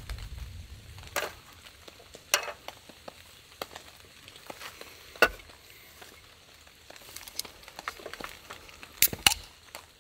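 Soft, steady sizzling hiss with scattered sharp crackles and pops, two of them close together near the end.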